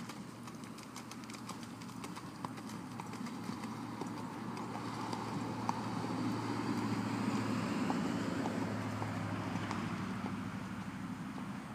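Hoofbeats of a horse loping across the sand of an arena, a run of light thuds, over a steady rushing noise that swells through the middle and eases toward the end.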